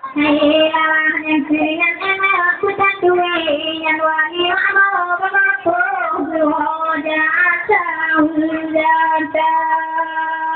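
A single high voice singing a slow chant, with long held notes that bend and waver in ornaments.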